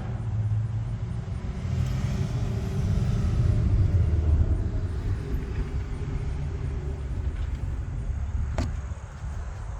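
Low, steady vehicle rumble, with a single sharp click about eight and a half seconds in.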